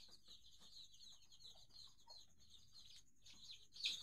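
A brood of young Aseel and fighter chicks peeping faintly: many short, high, falling notes overlapping continuously, with one slightly louder peep near the end.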